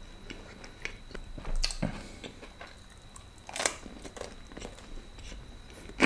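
A person chewing a mouthful of food, with small wet mouth clicks throughout. A few louder crunchy smacks come about a second and a half in, at three and a half seconds, and right at the end.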